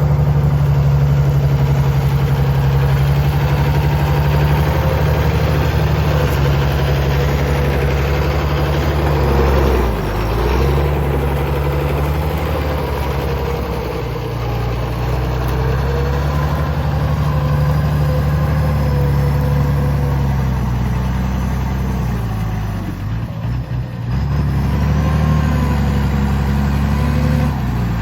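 CBT 1105 tractor's 366 six-cylinder diesel engine rumbling steadily while working, its level shifting with the load; it eases off briefly about three-quarters of the way through, then picks up again.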